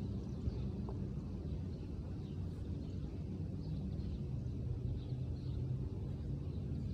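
Outdoor ambience: a steady low rumble with a faint hum, and faint bird chirps now and then.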